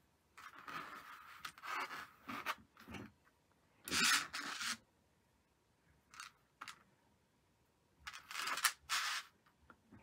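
Hands handling and laying down tatted-lace doilies on a tabletop: several short rustling, scraping bursts, the loudest about four seconds in.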